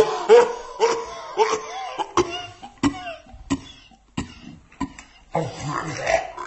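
A person coughing repeatedly in short fits, with throat-clearing sounds; the coughs come about every half second and thin out briefly a little past halfway.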